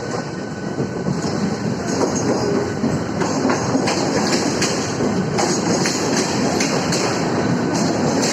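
Mumbai suburban EMU local train running as it pulls out, its wheels clattering over rail joints and points, growing louder in the first few seconds as it picks up speed.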